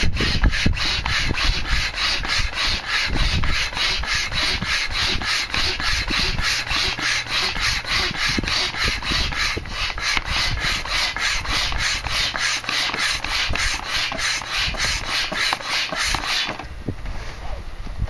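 Hand barrel pump inflating an inflatable float tube through its hose: a fast, even rasping rhythm of about four rasps a second, which stops about sixteen seconds in.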